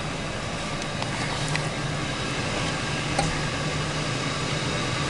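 A Ford 4.6 L V8 runs steadily in a 2004 F-150, heard from inside the cab, with the rebuilt 4R75W transmission selected in manual 1.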